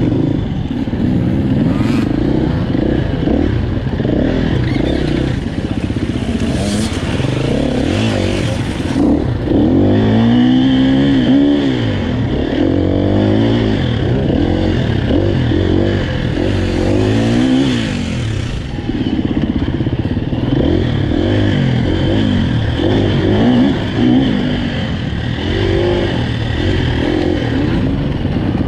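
KTM EXC-F 250 dirt bike's single-cylinder four-stroke engine heard on board, revving up and down over and over as it is ridden through rough rocky dirt, with sharp rises in revs about ten seconds in and again about sixteen seconds in.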